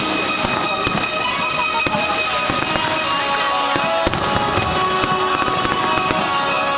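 Fireworks going off in a dense string of sharp cracks and pops, over music with sustained notes.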